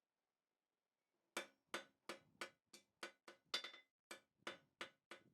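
Hand hammer striking a steel rivet, about three ringing blows a second after a short silence, brading the rivet over into a head on the caliper joint.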